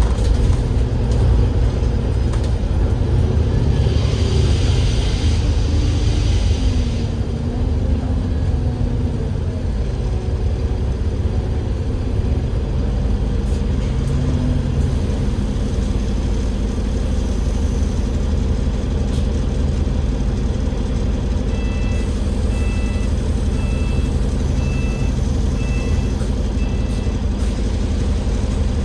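Cummins L9E diesel engine and ZF Ecolife automatic gearbox of an Enviro500 MMC double-decker bus running, a steady low drone inside the bus. A short hiss comes about four seconds in, and near the end a row of about seven short electronic beeps sounds, nearly one a second.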